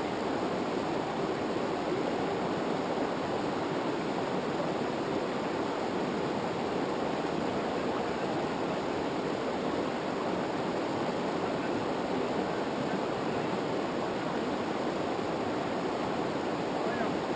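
Steady, unbroken rush of fast-flowing mountain river water over rapids.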